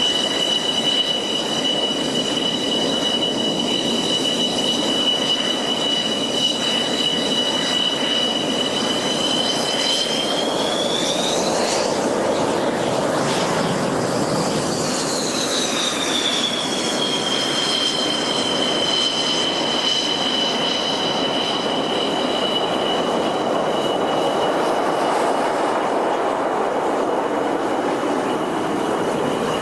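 JF-17 Thunder fighter's single Klimov RD-93 turbofan: a steady jet roar with a high whine that climbs in pitch about ten seconds in, drops away, then comes back high and falls from about fifteen seconds in as the jet passes.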